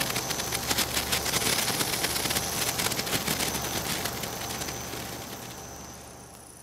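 Senkō hanabi (Japanese sparkler) crackling and fizzing as its glowing bead throws branching sparks; the crackles thin out and fade away toward the end.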